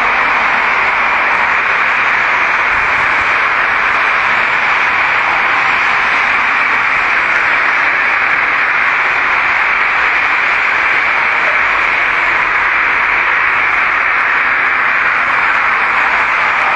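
A steady, even hiss of recording noise with no change and no speech.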